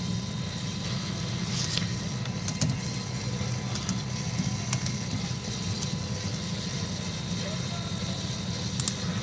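Steady low hum, with a few faint short clicks scattered through it.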